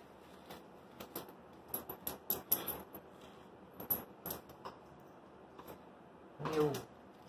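Paper banknotes handled and counted one by one, giving a series of short, irregular crisp rustles and flicks with a few sharp clicks.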